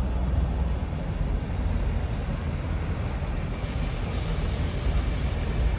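Class 158 diesel multiple unit at the platform, its diesel engines running with a low steady rumble. A hiss joins in about three and a half seconds in.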